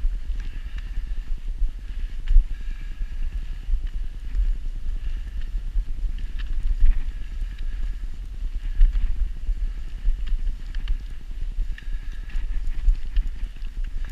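A person's footfalls crunching on packed snow, with a steady low rumble of wind and motion on an action camera's microphone.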